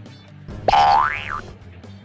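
A cartoon 'boing' sound effect: a springy pitch glide that shoots up and then drops back, about half a second in, over soft background music.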